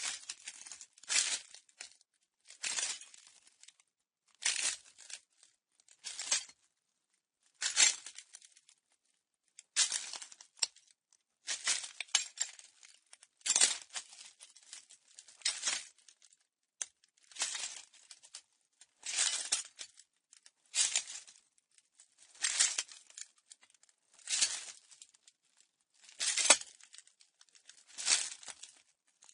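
Slow footsteps crunching on broken glass: one crisp, grinding crunch of shards underfoot about every one and a half to two seconds, with silence between steps.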